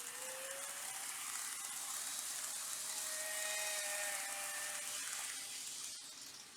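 Model E5 series Shinkansen train running on track: a hiss of wheels on rail with a faint motor whine, building over the first few seconds and fading near the end as it passes.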